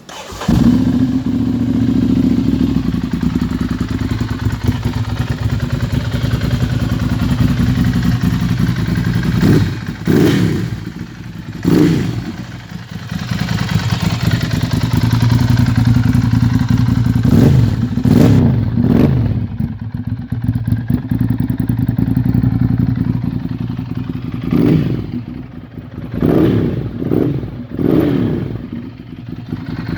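Ducati Monster 796's air-cooled L-twin engine firing up just after the start and idling, with the throttle blipped in several short revs that rise and fall, in groups about a third of the way in, around the middle and again near the end.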